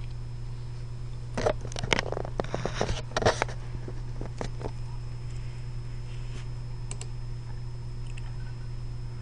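A quick run of light clicks and taps, lasting about two seconds and starting a second and a half in, over a steady low electrical hum, with a few faint ticks later on.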